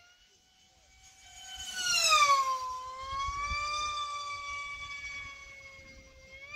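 Electric pylon-racing model aircraft flying past, the high whine of its motor and propeller dropping sharply in pitch as it passes, loudest about two seconds in. The whine then holds steadier and fades, and rises again near the end as an aircraft comes round.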